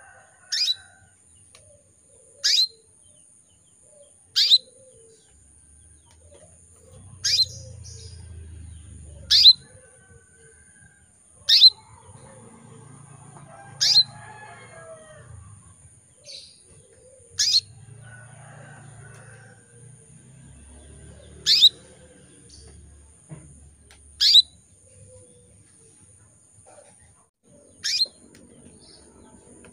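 Female canary giving single short chirping calls, each a quick downward sweep in pitch, about eleven of them at uneven gaps of two to four seconds. These are the calls of a female in breeding condition calling to a male. A faint low rumble comes and goes beneath them.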